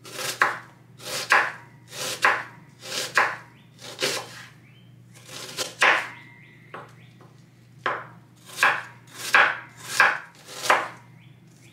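Kitchen knife slicing through an onion and knocking on a wooden cutting board, about one cut a second. There is a short pause a little past halfway, then a quicker run of cuts.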